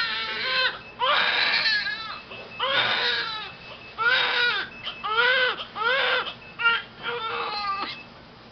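Newborn baby crying: a run of about eight short wails, each rising then falling in pitch, with brief breaths between them.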